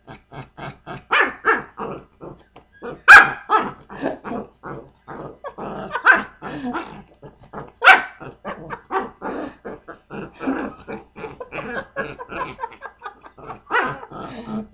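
Pomeranian growling and barking at a hand wrestling with it: a rapid run of short growl pulses, about five a second, broken by louder sharp barks. The loudest barks come about three seconds in and just before eight seconds.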